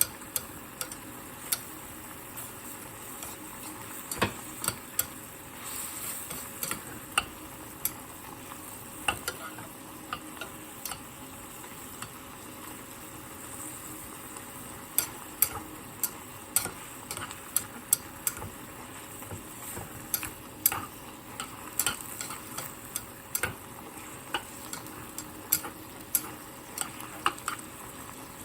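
A thick sauce cooking down in a pot, with a steady sizzle and many irregular sharp clicks and pops.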